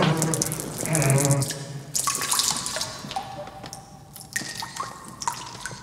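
A man urinating into a urinal, the stream heavy at first, then thinning to a trickle and drips.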